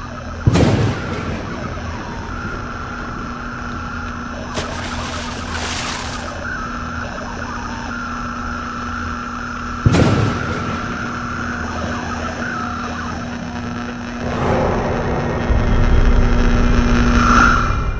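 Film sound design: a steady low droning hum with a thin higher tone over it, broken by two sudden booms about nine seconds apart, then building into a louder rumbling swell near the end.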